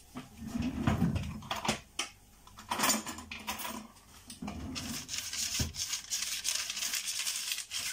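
Hands working with a metal springform cake tin and an oil bottle, with a few knocks and clinks, then from about five seconds in a steady rustling as fingers rub vegetable oil over the baking paper and the tin's sides.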